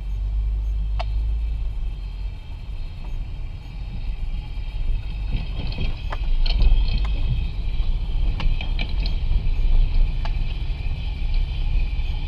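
Road and suspension noise from a slowly driven vehicle, picked up by a wireless ChassisEAR clamp microphone on channel 1 and played through the receiver's speaker. A steady low rumble with a few scattered light knocks.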